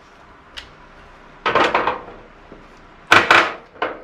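Metal parts and tools clattering while a gas wall heater is dismantled: a light click, then two bursts of clanking about a second and a half apart, and one short clank near the end.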